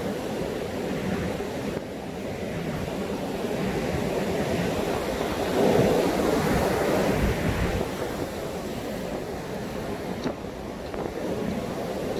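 High surf breaking on a sandy beach, with strong wind buffeting the microphone. A wave surges louder about halfway through, then falls back.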